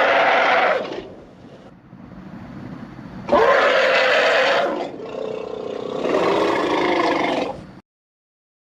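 Imagined diplodocus calls mixed from animal recordings such as elephant, mammoth and camel sounds: a loud call with a rising pitch fades about a second in, then two more long calls follow, the last cutting off suddenly near the end over a low rumble.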